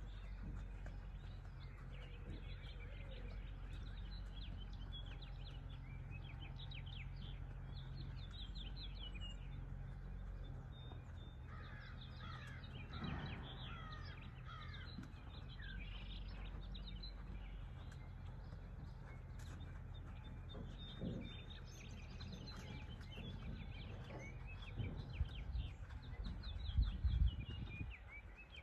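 Wild birds chirping and calling, with a denser run of louder calls about halfway through, over a steady low rumble; a few low thumps near the end.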